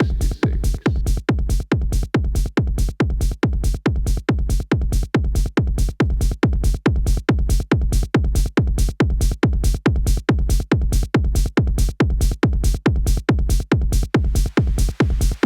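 Electronic techno/trance music played live on hardware synthesizers and a groovebox: a steady, driving four-on-the-floor kick beat with a deep bass line and bright high percussion.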